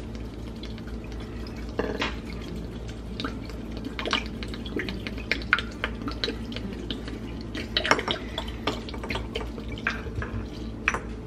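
Apple cider vinegar pouring from a bottle into a large glass jar of chopped roots and herbs, with irregular glugs and splashes.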